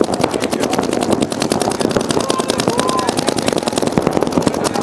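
Paintball markers firing in rapid, continuous streams: many sharp pops a second, overlapping from several guns without a break.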